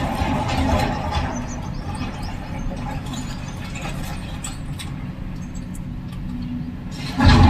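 Heavy diesel machinery running steadily, with scattered light clicks. A much louder rumble starts suddenly near the end.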